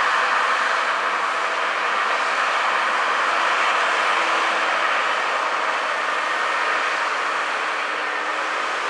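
Kenworth logging truck under way: a steady, even rushing noise that holds the same level throughout.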